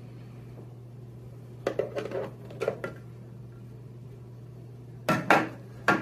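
Hard plastic clattering and knocking as a printer's clear plastic cover is lifted off and set down and the plastic ribbon cassette is handled, in two bursts: about two seconds in and again near the end. A steady low hum runs underneath.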